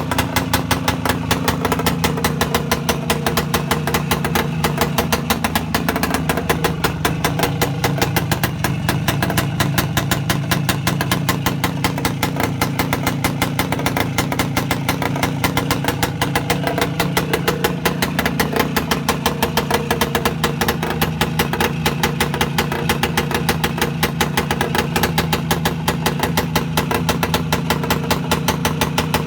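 Voskhod 3 motorcycle's 175 cc single-cylinder two-stroke engine running steadily with a rapid, even firing beat and no revving, freshly rebuilt after a full overhaul.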